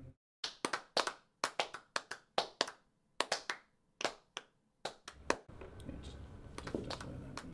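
Sparse, scattered applause from a small audience: a handful of separate hand claps, irregular at roughly four a second, which stop after about five seconds, leaving faint room hiss.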